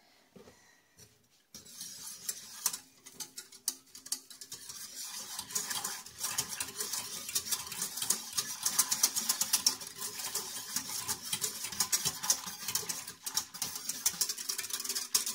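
Wire whisk stirring broth in a stainless steel pot, a rapid, continuous run of light metal clicks and scrapes that starts about a second and a half in, dissolving soaked gelatine in the broth.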